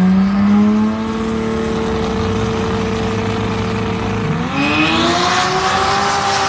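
Drag-racing car engine at high revs: the pitch climbs, holds steady for about four seconds, then climbs again and levels off.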